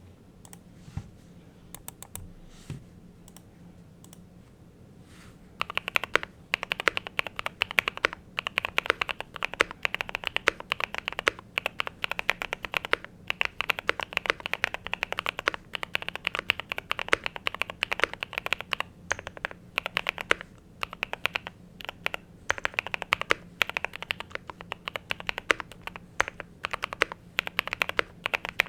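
Typing on a FinalKey V65 65% mechanical keyboard with Tecsee Strawberries linear switches, a PC plate and Modern Dolch keycaps. A few isolated clicks come first, then fast continuous typing sets in about five and a half seconds in.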